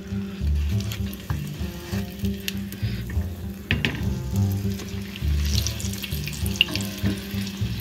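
Hot vegetable oil sizzling around a meat-stuffed potato bread shallow-frying in a pan. A wooden spatula knocks against the pan once, a little under four seconds in, as the bread is turned, and the sizzling gets louder once the bread is back in the oil. Soft background music plays underneath.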